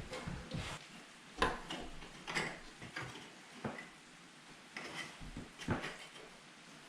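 Irregular clicks and clunks of metal parts being handled and fitted inside a fused disconnect box, about a dozen sharp knocks at uneven intervals.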